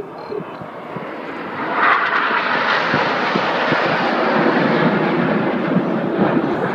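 Red Arrows' BAE Hawk jets flying past, a steady jet rush that swells about two seconds in and stays loud.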